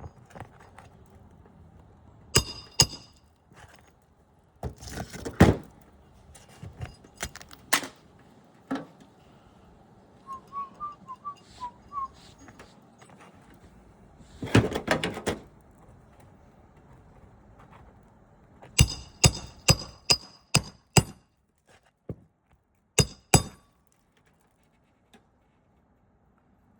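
Asphalt shingle repair work: scattered hammer blows on metal roofing tools and nails, a few ringing out, with a quick run of about eight blows near the end and scraping of shingle material between.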